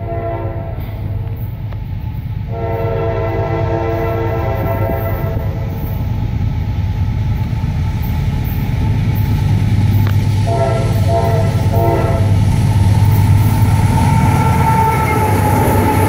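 Diesel-electric freight locomotive approaching and sounding its air horn, a chord of several notes: a short blast, a long blast of about three seconds, then two short blasts about ten seconds in. Under the horn the locomotive's engine rumbles steadily, growing louder as it closes in.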